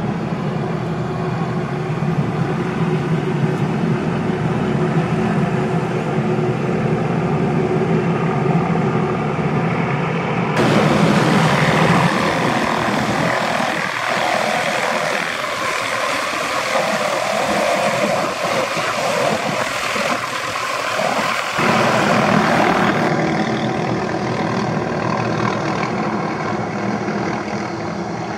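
McDonnell Douglas MD 500E (369E) helicopter's turboshaft engine and rotor running loud and steady, the helicopter hovering low. The sound changes abruptly twice, about a third and about three quarters of the way through.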